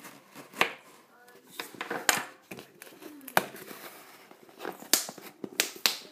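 Cardboard shipping box being cut open and handled: a blade scratching through packing tape, with half a dozen sharp knocks and taps on the box.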